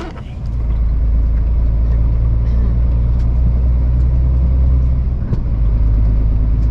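Lorry's diesel engine and road rumble while driving, a deep steady drone that builds up in the first second and briefly dips about five seconds in.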